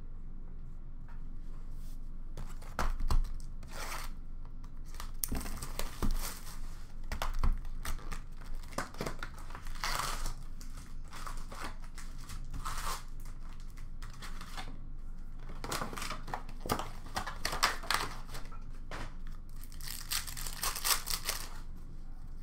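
Hockey card packs being torn open by hand, the wrappers ripping and crinkling in several separate bursts, with a few light knocks as packs are handled on the counter.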